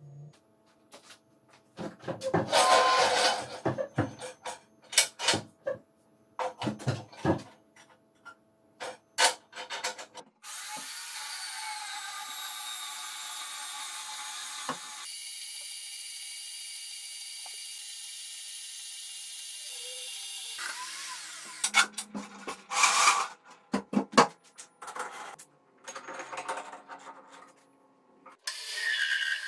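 Sharp clanks and knocks of steel parts being handled, then a benchtop metal-cutting band saw runs for about ten seconds, cutting through a rusty steel rod clamped in its vise, with the sound changing partway through. More knocks follow, and a metal lathe starts up near the end.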